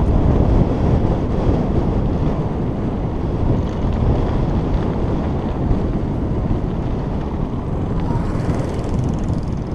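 Wind buffeting the microphone of a bike-mounted camera riding at speed down a rough dirt road: a steady, dense low rumble.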